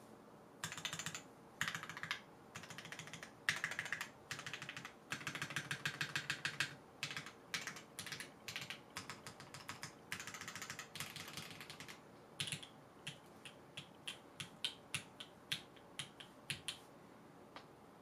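Typing on a Sangeo60 custom mechanical keyboard with JWK Snow White linear switches, GMK Striker keycaps and an aluminium plate: fast runs of keystrokes, then a string of separate single presses a few per second that stops shortly before the end, over a faint steady hiss from the camera microphone.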